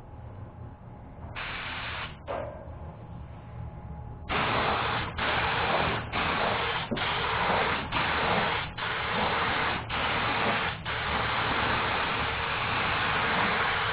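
Compressed-air paint spray gun hissing: one short burst about a second in, then from about four seconds in a string of bursts, each about a second long with brief breaks, turning into one continuous spray near eleven seconds in.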